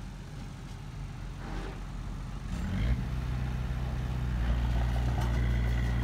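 Small crawler bulldozer's diesel engine running as it pushes a blade-load of soil, revving up a little under halfway through and then holding at the higher speed.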